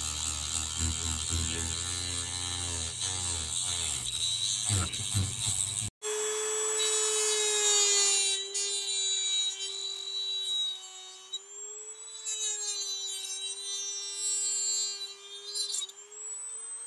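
Handheld rotary tool with a cutoff wheel cutting small pieces off a model locomotive's boiler support part. It makes a rough grinding noise at first, then after a short break about six seconds in, the motor settles into a steady high whine that wavers slightly near the end.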